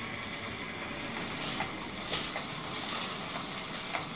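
Diced potatoes frying in oil in a kadai, a steady sizzle with a few faint ticks.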